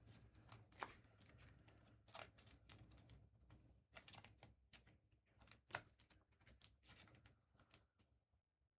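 Faint, irregular clicks and rustles of trading cards being handled and flipped through by hand.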